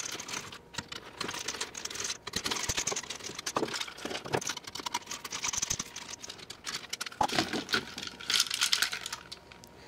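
Small plastic and metal parts of a hand-dryer motor assembly being handled and taken apart: a run of light clicks, rattles and rustling.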